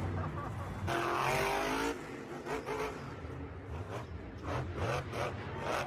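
Car engine revving, its pitch climbing for about a second shortly after the start, over a steady rumble.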